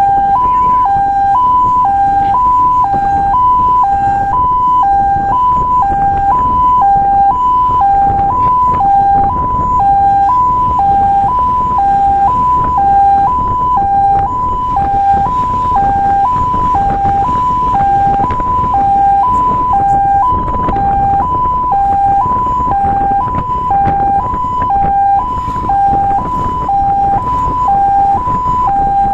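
Fire truck's roof-mounted electronic siren sounding a loud two-tone hi-lo wail, switching between two pitches about twice a second, over the low rumble of the truck driving on the road.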